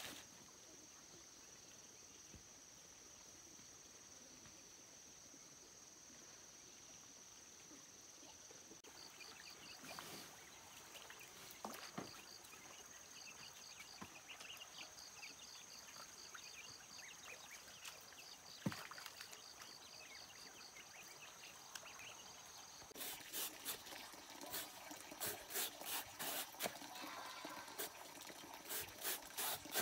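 Insects droning with a steady high note, joined by faint repeated chirps. In the last quarter, water splashing and trickling comes in irregular bursts.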